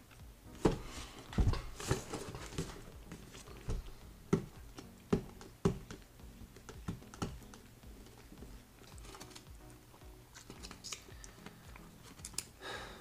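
A small cardboard box being opened by hand: a string of sharp clicks, taps and scrapes as its tucked top flap is worked loose, most of them in the first half.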